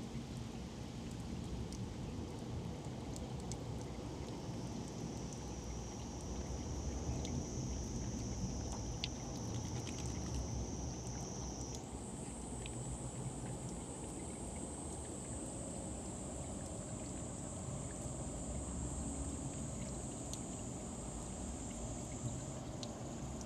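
A thin stream of tap water trickling into a concrete basin, with scattered small clicks of drips and a cat lapping at the stream, over a steady low rumble. A steady high buzz comes in about five seconds in and jumps higher about halfway through.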